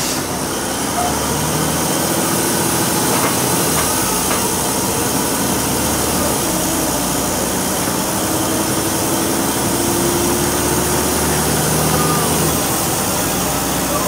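Volvo B6BLE single-deck bus's rear-mounted diesel engine running under way, heard from inside the passenger saloon with a steady rumble of road and body noise. The engine note climbs gently twice and shifts a few times as the bus drives on.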